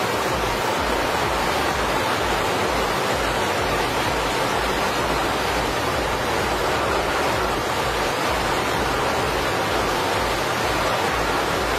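Steady rushing noise of water and wind with no distinct engine tone, over an irregular low rumble.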